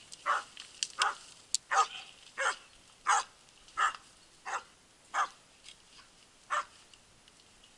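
A dog barking repeatedly, about ten short barks roughly two-thirds of a second apart, which stop about six and a half seconds in. In this scene it is a hunting dog baying at the downed wild boar.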